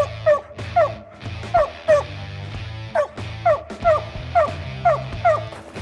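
A hunting dog barking over and over in short, sharp barks, about two a second, the steady barking of a dog treeing a squirrel. Background music with a steady low bass plays underneath.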